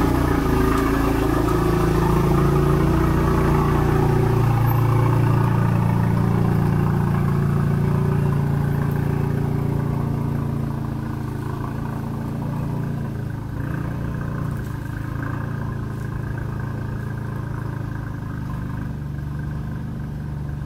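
Audi sedan's engine running at low revs as the car pulls slowly out of the garage, with the sound getting quieter about halfway through as the car moves away onto the driveway.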